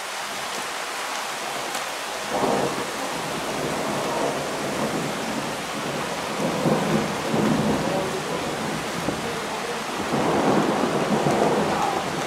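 Thunder rolling over steady rain: a short rumble about two seconds in, a longer roll midway, and another near the end.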